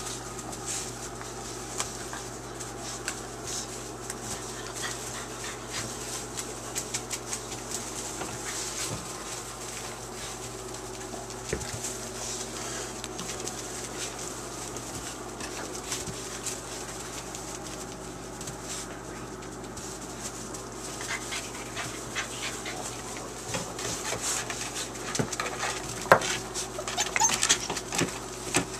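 A litter of 5½-week-old puppies playing in wood shavings: scratching and rustling of the shavings with small whimpers and yips. The yips come thicker and louder near the end.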